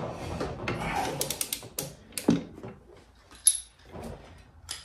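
Socket wrench ratcheting and clicking on the jackshaft bolt as it is tightened against the brake-held rotor, with a single sharp metallic click and a brief high ring about three and a half seconds in.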